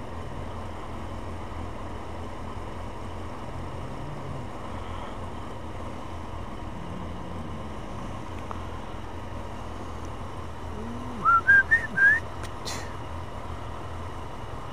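About four short, rising whistled notes, each a little higher than the last, a little after eleven seconds in, over a steady low rumble.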